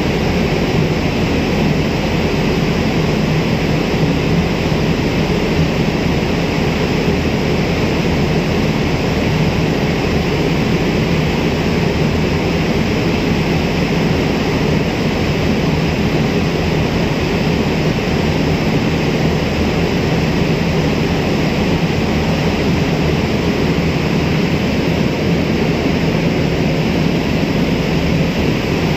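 Steady, loud drone of a boat's engine underway, with a broad rush of wind and water over it.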